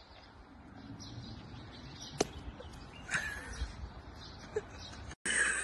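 A single sharp crack about two seconds in as a raw egg's shell breaks under a flexed biceps, over faint bird chirps.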